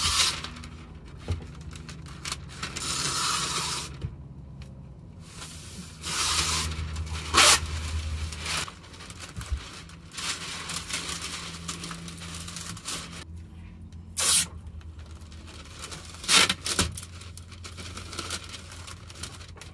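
Masking tape being pulled off the roll and pressed over masking paper: several long rasping rips of tape unwinding, with a few sharp clicks between them.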